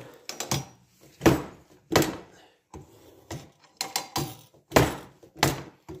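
Hand-lever tooth setter for sawmill band blades being worked: a run of sharp knocks at uneven intervals as the levers advance the blade and bend its teeth over to set them.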